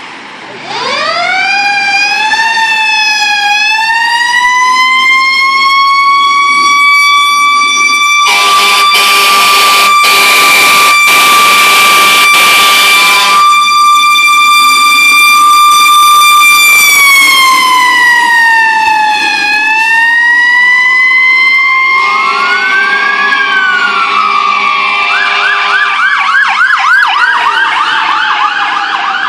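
Fire ladder truck siren winding up from low to a steady, loud wail, with about five seconds of blaring horn blasts over it. It winds down and rises again, and near the end a second, electronic siren joins in a fast yelp.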